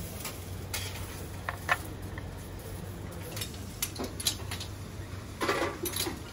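Scattered light clinks of a metal spoon and porcelain crockery as a spoon is dipped into a cup of soup, over a low steady room hum. A brief louder rustle comes near the end.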